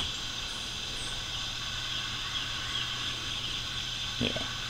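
Steady background hum and hiss with no distinct event, and one short pitched sound near the end.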